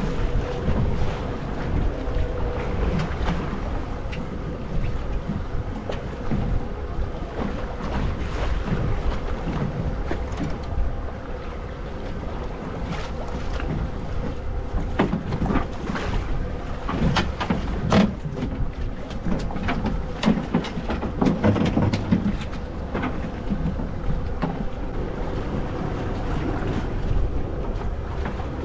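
Wind buffeting the microphone on a small fishing boat at sea, over water noise and a steady low hum, with scattered clicks and knocks, most of them in the middle stretch.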